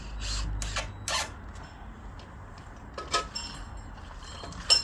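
Scattered sharp knocks and clinks from the bell's hoisting gear as the bell is pulled up on its rope, the loudest just before the end, over a steady low rumble.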